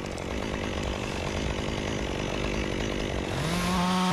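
Stihl MSA 120 C-BQ cordless battery chainsaw running. Its motor whine rises in pitch a little after three seconds in as it speeds up.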